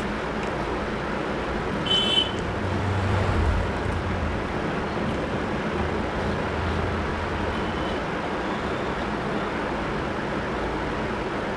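Steady background traffic noise, with a low rumble swelling twice as vehicles pass and a short high-pitched tone about two seconds in.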